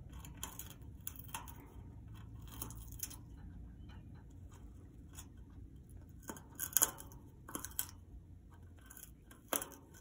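Congo African grey parrot gnawing a natural wood perch with her beak: irregular crunching and splintering bites. The loudest crunches come between about six and eight seconds in, with another near the end.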